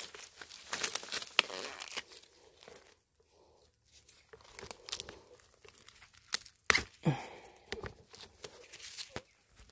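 Dry bamboo leaves and stems rustling and crackling with sharp snaps, as wild bamboo shoots are handled and picked in dense bamboo scrub. A short falling squeak comes about seven seconds in.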